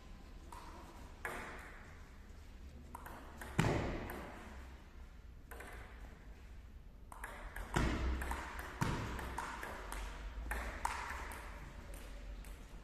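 Table tennis ball striking the paddles and the table: sharp clicks at uneven intervals, each ringing briefly in a large gym hall.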